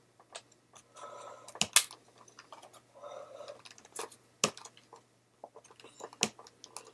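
Plastic toy packaging being cut and pried at: several sharp clicks and snaps, with brief scratchy rustling between them.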